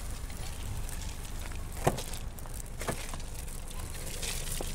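Steady low rumble of street noise with a few sharp knocks, the loudest about two seconds in.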